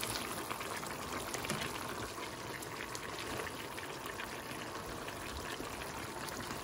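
Chicken asado sauce simmering in a wok: steady bubbling with many small pops and ticks.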